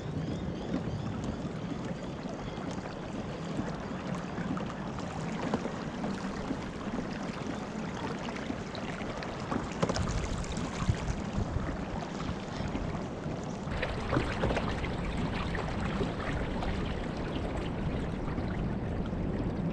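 Water trickling and splashing along the hull and outrigger floats of a Hobie Tandem Island sailing kayak under way, a steady wash with a few light knocks.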